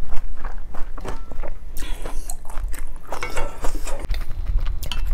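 Close-miked mukbang chewing of a mouthful of food, with many small wet mouth clicks, and a denser noisy stretch about two seconds in.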